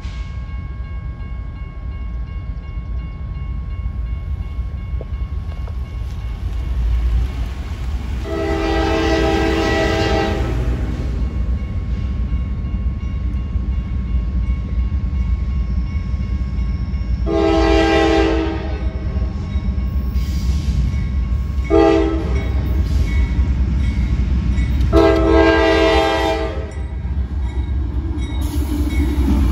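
CSX freight locomotive's air horn sounding the grade-crossing signal as the train approaches: two long blasts, a short one, then a final long one. A steady low rumble runs underneath.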